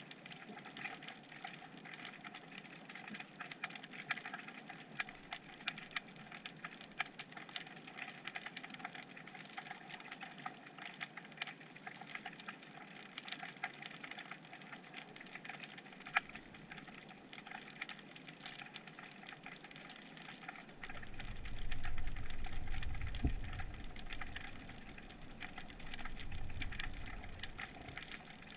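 Underwater crackle of many irregular sharp clicks from snapping shrimp on the bottom, heard through a GoPro's waterproof housing. A low rumble comes in about two-thirds of the way through.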